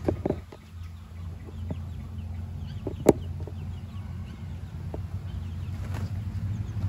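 Backyard chickens and young turkeys making many short, faint calls over a steady low hum, with a single sharp click about three seconds in.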